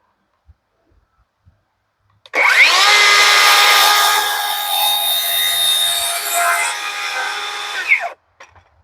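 Power saw spinning up, cutting through wood for about six seconds with a steady whine, then winding down as it stops.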